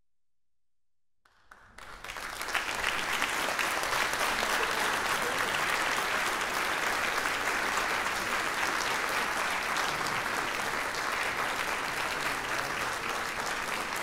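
An audience applauding. The clapping starts about a second and a half in, swells quickly to full strength and holds steady.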